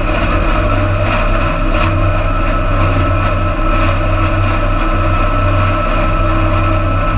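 Tractor engine running steadily while the tractor drives across the field, with a thin, steady high whine over the engine note.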